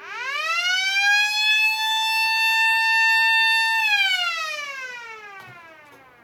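Blast warning siren winding up to a steady wail over about a second and a half, holding, then winding down and fading from about four seconds in. It is the warning sounded before a rock blast is fired.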